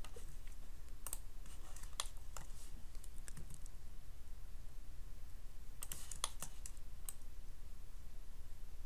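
Computer keyboard keys and mouse buttons clicking at irregular intervals while a 3D model is edited, with a few quick clicks together about six seconds in, over a faint low steady hum.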